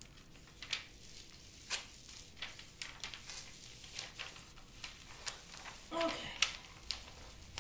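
Protective paper being slowly peeled back from a diamond painting canvas's adhesive surface: faint, scattered crinkles and rustles of paper.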